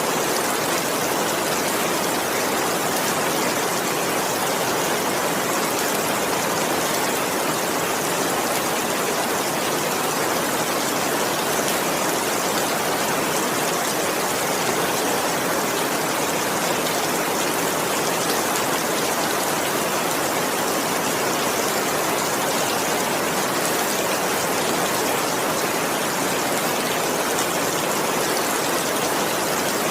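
Steady heavy rain falling, a dense, even hiss without thunder.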